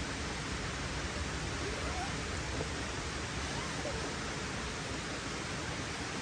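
Steady, even rushing ambience of a forest campsite, with a few faint short rising chirps about two and four seconds in.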